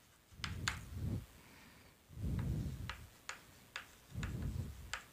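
Chalk writing on a blackboard: irregular sharp taps as the chalk strikes the board, with short low strokes in between.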